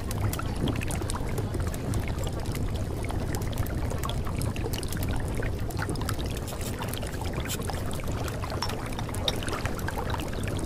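Steady flowing-water noise with a low rumble and many fine crackles, unchanging throughout, used as the masking track of a subliminal affirmation audio.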